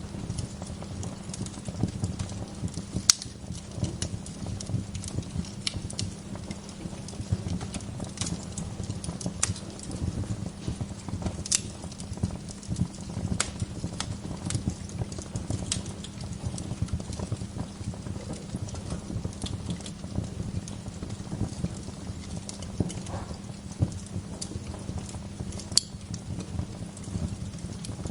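Wood fire crackling in a fireplace: a steady low rumble of the flames with irregular sharp pops and snaps of burning wood, a few of them louder, about 3 seconds in and near the end.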